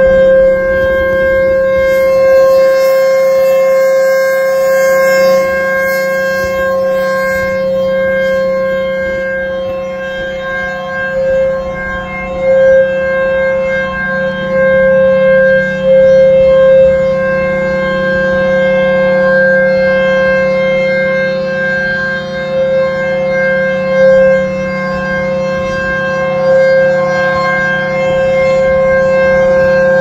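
Federal Signal Thunderbolt 1000B civil-defense siren with a C-series blower, sounding a steady-pitched tone during its monthly test. The loudness swells and fades every few seconds as the rotating horn sweeps past.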